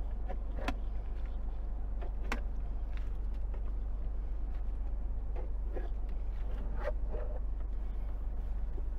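Steady low rumble inside a car's cabin, with a few faint clicks and taps scattered through it.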